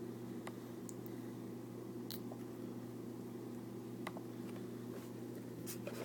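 Steady low hum in a small room, with about half a dozen faint, scattered clicks.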